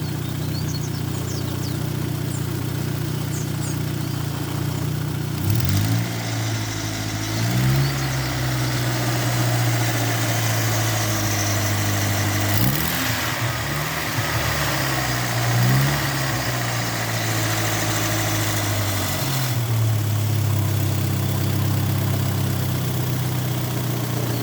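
Car engine idling and being revved up several times, then settling back to idle near the end. It makes the noise the owner blames on knocking hydraulic lifters (tappets).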